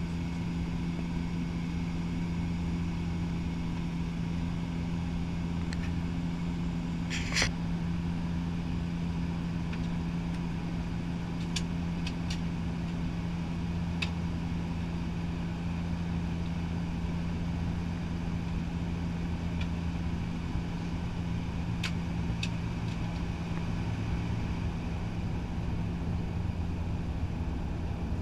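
Steady drone of a turboprop airliner's engine and propeller heard inside the cabin, a level hum over a low rumble. A few faint clicks come through, one louder about a quarter of the way in.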